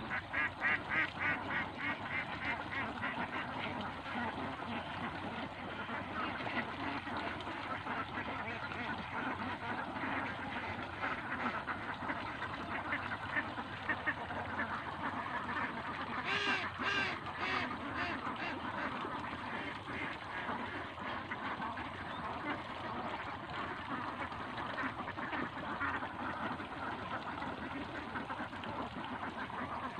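A flock of domestic itik ducks quacking and chattering continuously. A run of quick quacks comes in the first few seconds, and a louder burst of quacks comes a little past the middle.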